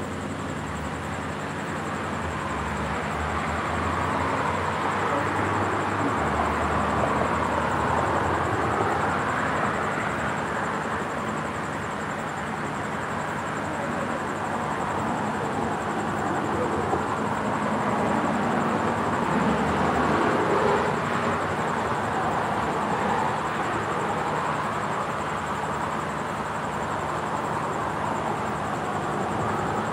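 Cars passing on a multi-lane city street, their tyre and engine noise swelling and fading as each goes by, with two louder pass-bys.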